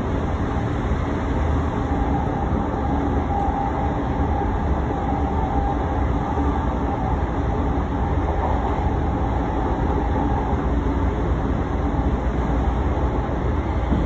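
Odakyu 3000 series electric train running at speed, heard from inside the car: a steady rumble of wheels and running gear on the rails, with a faint motor whine in the middle seconds.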